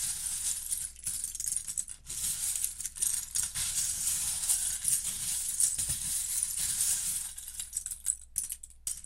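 Many loose plastic Lego bricks rattling and clattering together, as when a handful of pieces is stirred or shaken, in a dense run that thins out near the end.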